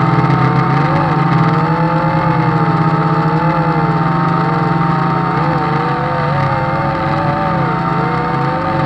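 JJRC H16 quadcopter's motors and propellers whining steadily, several pitches wavering up and down as the motors change speed. One of its motors is failing.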